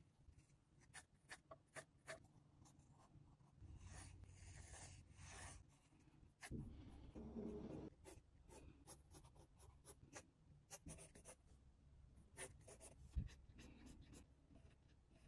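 Faint graphite pencil scratching on drawing paper: quick short sketching strokes, with two longer stretches of continuous scribbling and one sharper click near the end.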